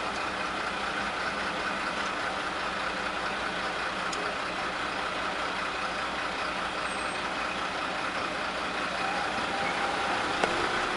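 Steady cabin noise of a car stopped with its engine idling, heard from inside the car, with one short click near the end.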